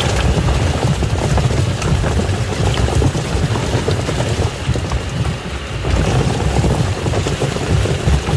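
Washing machine running its wash cycle: a steady low motor rumble with water sloshing and plastic toys knocking about in the drum.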